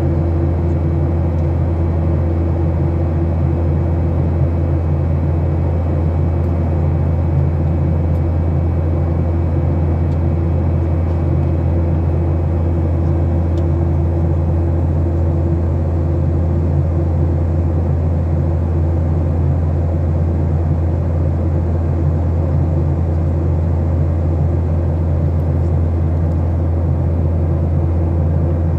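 Airliner's turbofan engines and rushing airflow heard inside the passenger cabin in flight: a loud, steady low drone with a faint hum on top that does not change.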